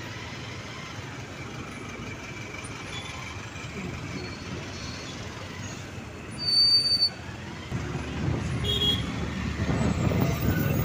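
Congested city traffic heard from a motorcycle: a steady low engine rumble of buses, cars and motorbikes idling and creeping in a jam. A short, loud, high-pitched toot sounds about six seconds in, and the engine rumble grows louder near the end as the traffic moves.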